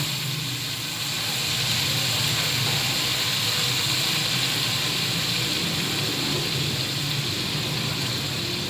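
Mutton liver curry sizzling steadily in an aluminium karahi over a gas flame as the masala fries down.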